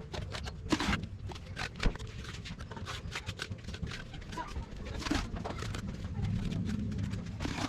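Hand tools working wet concrete: irregular scraping and clinking strokes, several a second, over a low steady rumble.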